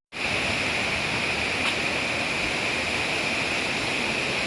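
Steady rush of flowing water from the stream and waterfall running through a limestone cave.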